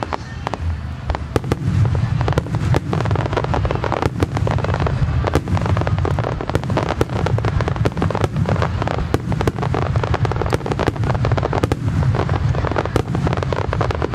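Starmine fireworks display: many aerial shells bursting in rapid succession, a dense run of bangs over a continuous low rumble. It thickens about a second and a half in.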